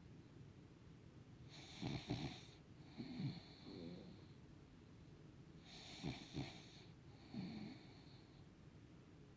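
A puggle (pug–beagle cross dog) snoring: two snores about four seconds apart, each a noisy breath in and out.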